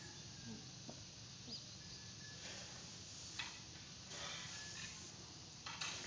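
Faint, soft swishes of a long-handled rake pushed through paddy rice spread out on the ground to dry, a few separate strokes.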